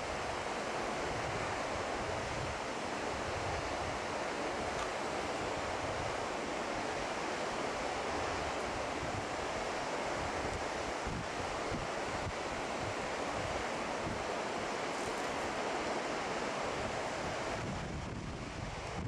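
Steady outdoor rushing noise: wind buffeting the microphone over the rush of water. It eases slightly near the end.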